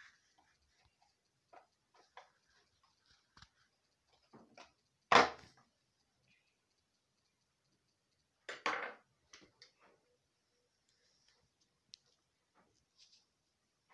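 Faint scattered clicks and small knocks from handling plastic electrical fittings, wire and pliers on a wooden table. One loud knock comes about five seconds in, and a short clatter follows near nine seconds.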